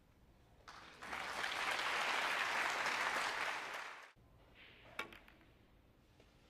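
Audience applauding for about three seconds, cut off abruptly. About a second later comes a single sharp click of a cue striking a snooker ball.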